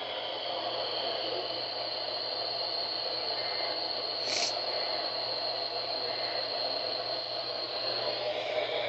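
Radio receiver static: a steady hiss of noise from a weakly received station, with a thin steady high whistle over it and a brief crackle about four seconds in.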